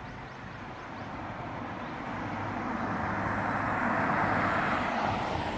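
Noise of a passing vehicle, swelling over a few seconds and fading near the end.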